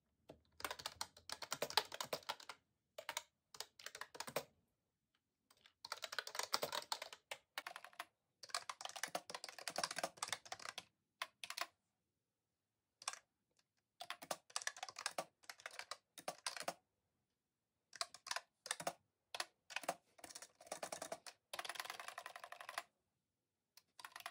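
Typing on an Accto B303 retro typewriter-style keyboard with round keycaps: quick runs of key clicks lasting a second or few, broken by short pauses.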